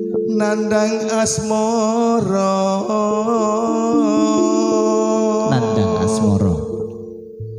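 A man singing a Javanese campursari melody through a microphone and PA speakers, over sustained single-keyboard (organ tunggal) notes. Near the end the voice slides down and fades, leaving a low held note.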